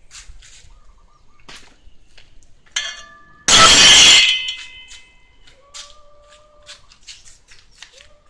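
A loud, short clatter about three and a half seconds in, with a ringing, clinking tail that fades over about a second. Small birds chirp throughout.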